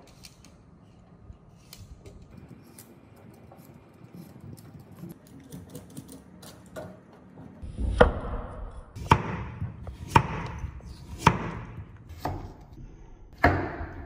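Kitchen knife cutting a carrot on a cutting board: faint taps and scrapes at first, then about six sharp chops roughly a second apart in the second half.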